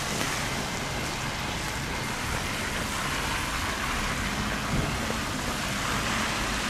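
Steady rain falling on wet pavement, a continuous hiss.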